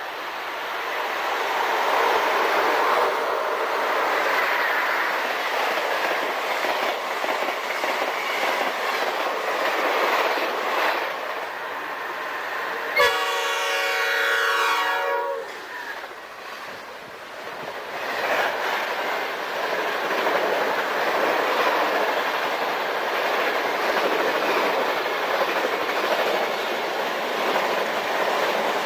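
Amtrak electric passenger trains running through a station at speed: a steady rush of wheels and rail clatter from the passing cars. About halfway through, a locomotive horn sounds once for about two and a half seconds. The rush eases briefly after the horn, then picks up again as a long train of stainless-steel passenger cars runs past.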